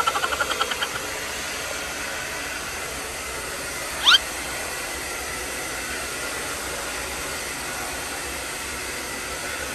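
Handheld hair dryer blowing steadily as hair is blow-dried. A quickly pulsing tone dies away within the first second, and a short rising whistle sounds about four seconds in.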